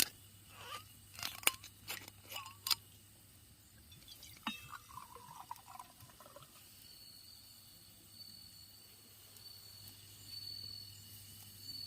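Several sharp clinks of tableware, then a drink poured into a glass for about two seconds. Faint insects trill in the background from about seven seconds in.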